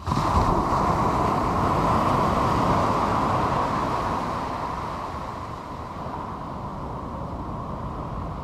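Ocean surf breaking and washing up the sand: a loud, even rush that starts abruptly and eases off gradually after about four seconds.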